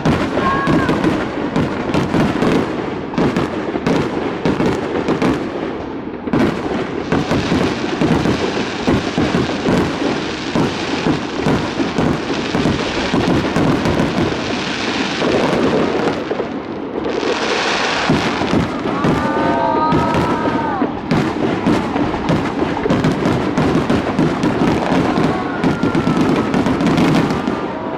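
A fireworks display going off in quick succession: a dense run of bangs throughout, with stretches of hissing crackle among them.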